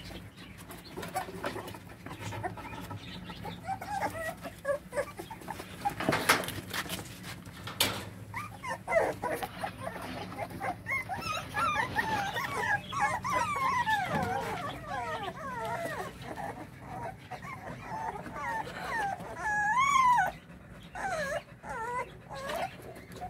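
A litter of pitbull puppies whining and yelping in many short, wavering high cries. The cries are busiest through the middle, with a louder cry near the end, and a few sharp knocks come earlier on.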